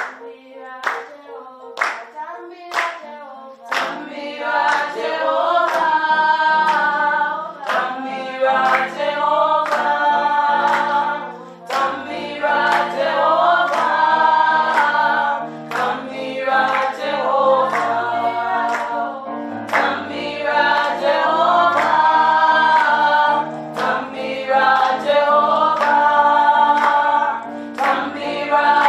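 A small women's choir singing a gospel song in harmony, with hand claps keeping a steady beat. The opening few seconds are mostly claps with light singing, and the full group comes in about four seconds in.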